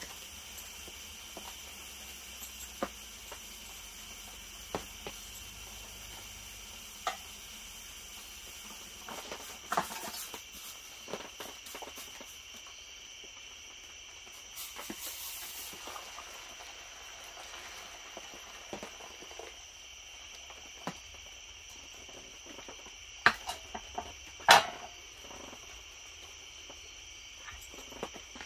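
Crickets chirring steadily outside, with scattered clicks and knocks of a steel canteen cup being handled off a small camp stove; two sharper knocks, the loudest sounds, come about three-quarters of the way through as the cup is set down on the metal table.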